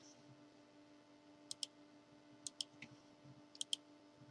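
Faint computer mouse clicks in three quick pairs about a second apart, over a low steady hum.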